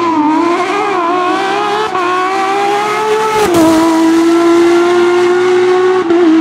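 Rally car engine under hard acceleration, its pitch climbing with small wobbles. About three and a half seconds in there is a gearchange with a sharp drop in pitch, after which it holds steady at high revs.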